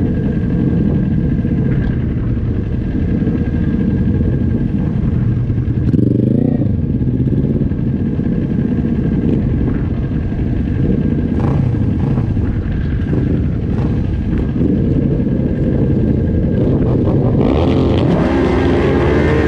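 Small supersport racing motorcycles idling on a starting grid, the nearest engine being the onboard Kawasaki Ninja 400's parallel twin. An engine is blipped briefly about six seconds in, and revving builds and rises in pitch near the end.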